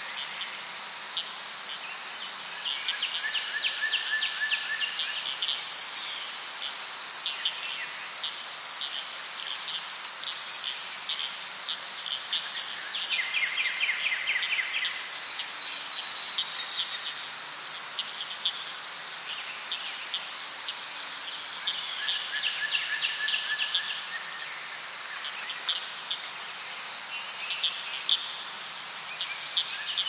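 A forest night chorus of crickets and other insects: a steady, high-pitched drone, with trains of rapid chirps that come and go every few seconds. A brief, lower, steady trill sounds twice.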